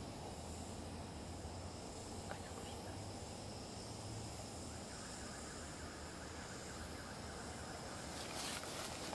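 Fire Maple FMS-117T titanium hose-fed gas stove burning steadily under a pot, an even rushing noise. A few faint rustles and clicks near the end.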